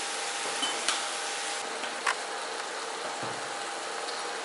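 Onion-tomato masala sizzling steadily in a frying pan, with three light clicks of a silicone spatula against the pan as it is stirred.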